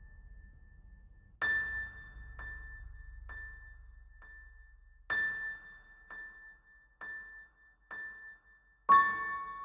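Film soundtrack music: a keyboard strikes one high note again and again, about once a second, with every fourth note stronger, over a low hum that fades out partway through. A lower note joins on the last strike near the end.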